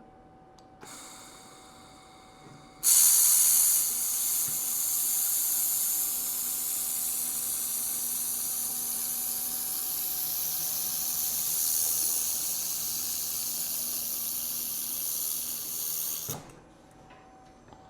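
Handheld fibre laser welder with wire feed running a continuous weld along the end-cap seam of a 1/4-inch 304L stainless steel vessel. A faint hiss starts about a second in. About three seconds in, the loud, steady hiss of the weld begins, runs for some thirteen seconds, and cuts off suddenly when the trigger is released. A faint steady tone sounds underneath throughout.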